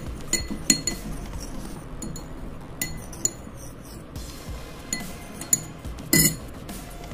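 Steel spoon stirring turmeric paste in a glass bowl, clinking and scraping against the glass at irregular intervals, with a louder clatter about six seconds in.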